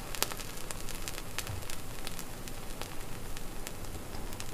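Pizza sizzling in a hot frying pan on a stove turned down to low heat: a steady, quiet sizzle with many small scattered crackles.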